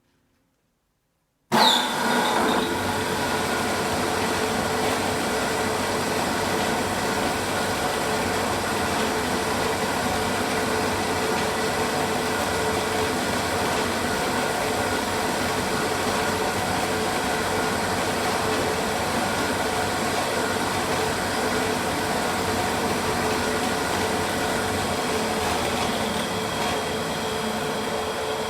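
TchPA-7 semi-automatic frame-saw sharpening machine running steadily, starting abruptly about a second and a half in. The brake on its main shaft has just been tightened to stop the sharpening head dropping with a knock.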